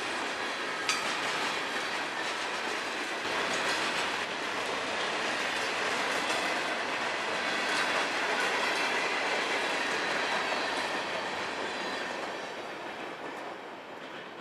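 Freight train cars, tank cars and a covered hopper, rolling past with steady wheel rumble and clickety-clack over the rail joints, with a sharp click about a second in. The noise fades away near the end as the last car goes by.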